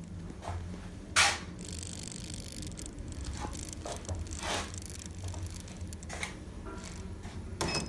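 Steady low hum inside a ThyssenKrupp Evolution elevator car, with a sharp knock about a second in and a few softer knocks and rustles later.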